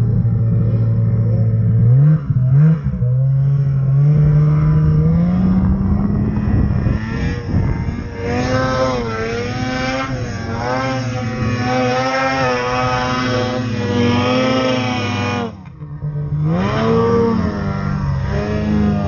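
Two-stroke snowmobile engine, a Ski-Doo Summit X, revving hard while ploughing through deep powder, its pitch climbing and wavering with the throttle and load. Near the end the throttle drops off for a moment, then the engine revs up again.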